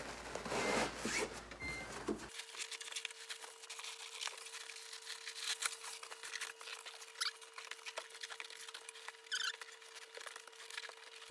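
Plastic trash bag crinkling and a seat cover rustling in quick, irregular crackles as the cover is stretched and pulled down over the bagged padding of a VW Beetle seat-back frame.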